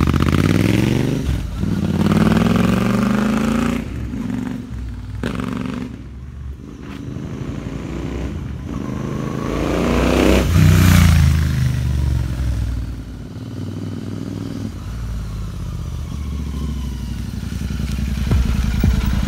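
Royal Enfield Continental GT 650's parallel-twin engine through an AEW aftermarket exhaust. It revs up as the bike pulls away, fades with distance, then grows to its loudest about ten seconds in before its pitch drops. Near the end it runs at low, steady revs as the bike comes back.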